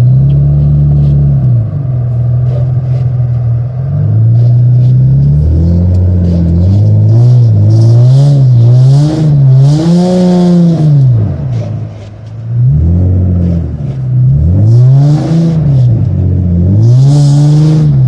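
Nissan 350Z's 3.5-litre V6 heard from inside the cabin, revving up and falling back again and again as the rear-wheel-drive car slides sideways through deep snow. Bursts of hiss come through twice near the middle and end.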